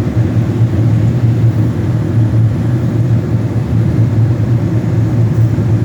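Walk-in cooler's evaporator fans running steadily: a loud, even low hum with rushing air, the unit circulating air and cooling normally again.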